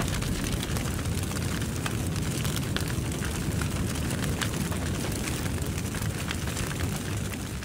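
A large timber stave church burning: a steady rushing fire noise with scattered crackles, fading out near the end.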